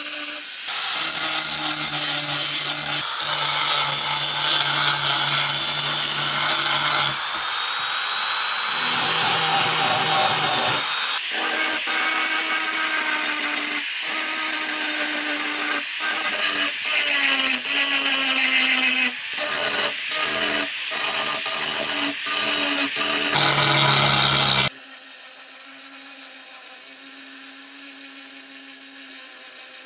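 Electric angle grinder with an abrasive disc grinding rust off a steel knife blade: a loud, continuous whine with a gritty edge that wavers in pitch as the disc is pressed on and eased off. The sound drops abruptly to a much quieter level near the end.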